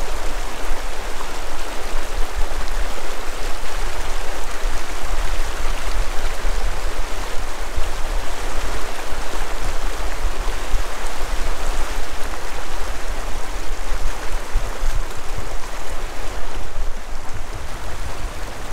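Mountain river rushing steadily over stones, a loud, even hiss of running water with a low rumble underneath.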